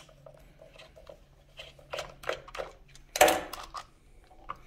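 Small screwdriver clicking in the screws of a plastic Stratus 2S receiver case, a few light clicks, then a louder clack about three seconds in as the screwdriver is set down on the table and the battery back half comes off.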